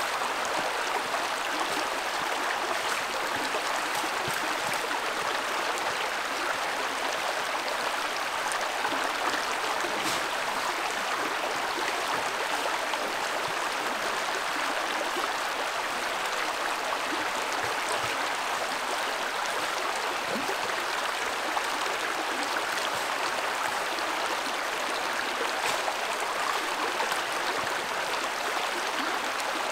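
Creek water running steadily over a rocky bed, an even rush of flowing water.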